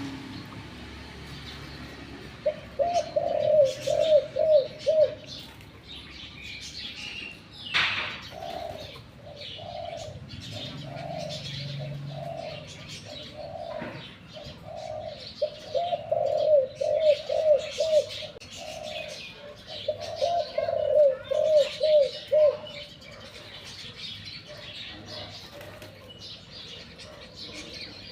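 Spotted dove cooing in three loud bouts of quick, rolling coo notes, with softer coos between them. Small birds chirp thinly throughout, and there is one sharp sound about eight seconds in.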